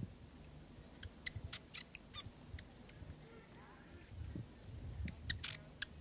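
Fantail giving sharp, high chip calls: a quick run of about half a dozen chips about a second in, and a few more near the end. A low rumble sits under the later chips.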